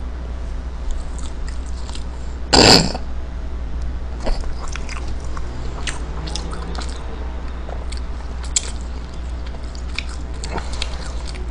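Close-miked chewing and mouth sounds of a person eating McDonald's French fries: small scattered clicks over a steady low hum. A short loud burst of noise comes about two and a half seconds in.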